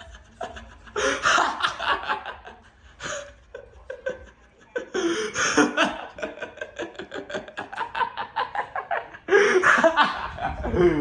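A person laughing hard in several bouts of quick, breathy bursts, the longest in the middle, the last one trailing off in a falling pitch near the end.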